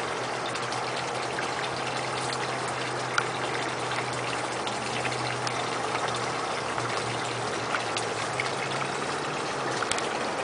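Steady running water in a garden pond, with a low steady hum underneath and a few faint clicks.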